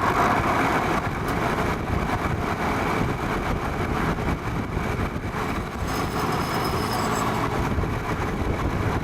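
Vintage Penncrest (rebadged Lakewood) metal box fan running, most likely on high, its motor rattling over the rush of air. The owner puts the rattle down to a worn rear thrust washer.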